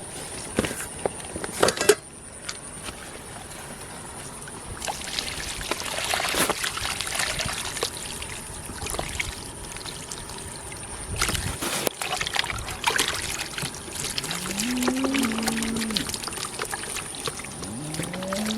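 Shallow canal water splashing and trickling, with scattered clicks and knocks. Near the end, a low animal call rises and then holds for about a second and a half.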